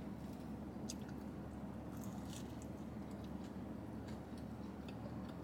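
A person chewing a bite of crispy fish taco with mouth closed: faint, scattered wet mouth clicks and small crunches over a steady low hum.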